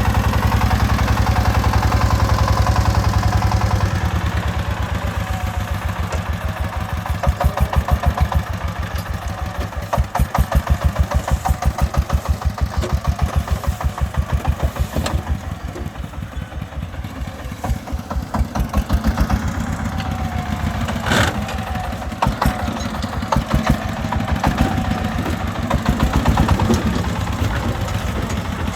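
Single-cylinder diesel engine of a công nông farm truck running with a fast, even chugging beat, getting louder and softer several times as it is throttled up and down.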